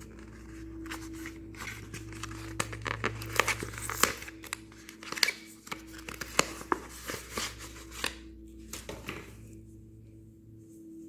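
Packaging being handled and opened: a run of crinkles, small tears and sharp clicks that dies away about 9 seconds in, over soft background music.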